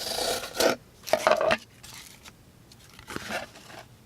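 The fine point of a folding knife's blade slicing into material in three scraping cut strokes, about a second and then two seconds apart.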